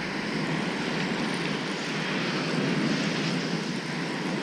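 Spinning reel being cranked steadily to wind in surf-casting line that has snagged a clump of seaweed, giving a steady mechanical noise.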